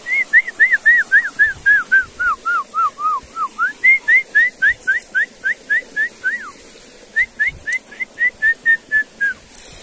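A person whistling to call dogs: three quick runs of short, clear notes at about three a second, the first run falling in pitch, with brief breaks between the runs.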